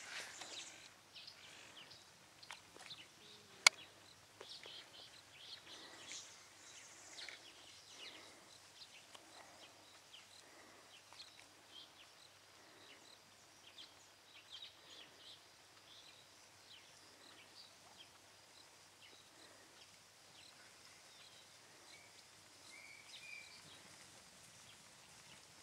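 Faint open-air ambience with scattered short bird chirps, and a single sharp click a little under four seconds in.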